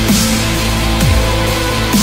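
Loud background music with a heavy beat: a noisy crash and a falling bass slide come about once a second.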